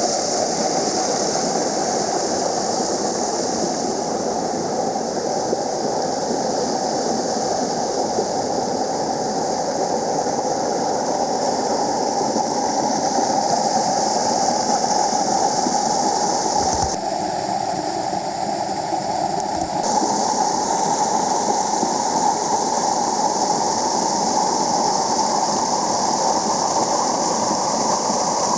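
Waterfall pouring steadily: a constant rushing of falling water. For a few seconds a little past the middle the rush changes tone and a faint low hum sits under it.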